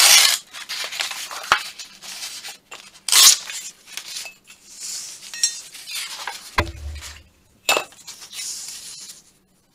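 Sheet of patterned paper being torn along a steel ruler and handled, several rustling rips with light metallic clinks from the ruler. About two-thirds of the way through comes a low thump and then a sharp click as the ruler is laid down on the cutting mat.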